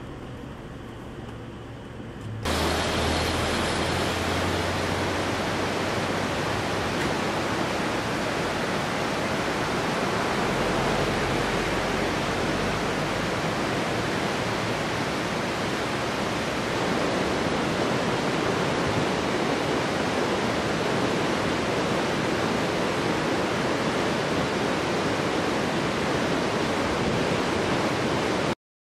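Loud, steady rush of running water, like a mountain torrent, starting suddenly about two seconds in after a quieter low hum and cutting off abruptly near the end.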